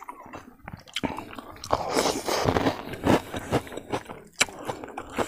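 A person chewing and crunching crispy food close to the microphone, with irregular crackles and a few sharp cracks: a crisp pork rind wrapped in a leaf being bitten and chewed.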